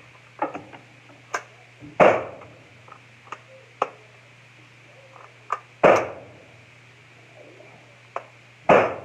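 Gunshots at a shooting range: three loud reports about two to four seconds apart, each with a short echo off the walls, with fainter clicks and knocks between them.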